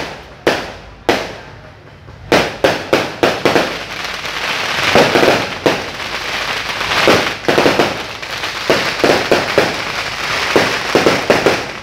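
Fireworks going off: two sharp bangs in the first second, then, from about two seconds in, a rapid run of bangs that merges into dense crackling, with bangs going on until shortly before the end.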